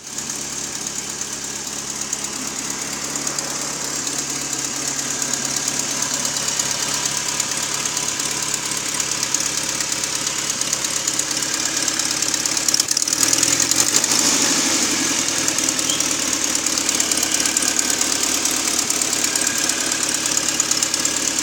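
Ford Escort 1.6 petrol engine running steadily with a strange noise that the owner cannot identify. The engine note changes and grows a little louder about thirteen seconds in.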